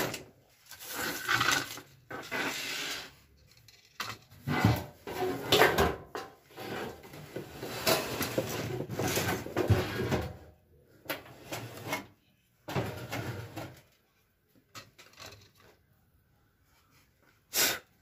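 Knocking and clattering of a Rinnai gas fan heater's casing and parts being handled and fitted back together, in irregular bursts that die down near the end, where one short sharp noise stands out.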